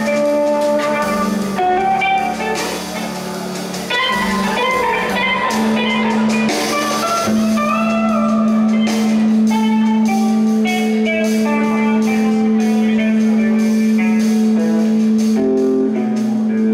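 A rock band playing live: electric guitars over a drum kit with cymbals. From about five seconds in, a low note and a higher note are held for around ten seconds under the busier playing.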